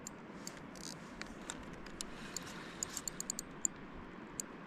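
Fishing reel being cranked to bring in a small hooked fish from a kayak: faint irregular clicks over a steady low hiss of water and wind.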